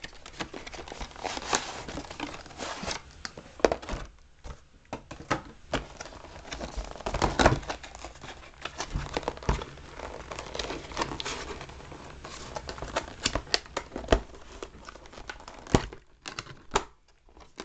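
Phone packaging being handled: a cardboard box, a clear plastic tray and a plastic accessory bag crinkling, rustling and clicking in irregular bursts.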